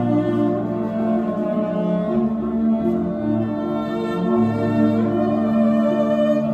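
Cello being bowed, playing a melody in long held notes that change pitch every second or two.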